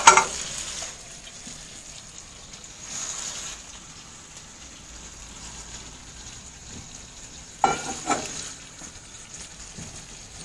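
Bluegill fillets and sliced onion frying in butter in a pan, a steady sizzle. A brief sharp sound at the very start is the loudest thing, with two shorter louder sounds about eight seconds in.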